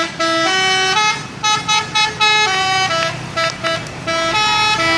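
Garbage truck's telolet multi-tone musical horn playing a tune: loud held notes stepping up and down in pitch, with brief breaks between phrases.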